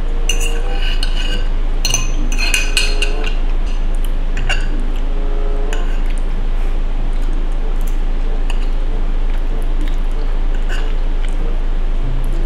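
Cutlery clinking and scraping against a dish while eating pasta: a quick run of clinks with short ringing in the first few seconds, then a few scattered light taps. A steady low electrical hum sits underneath.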